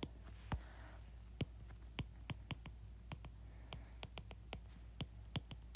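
Stylus tip tapping on an iPad's glass screen during handwriting: faint, irregular sharp ticks, two to four a second.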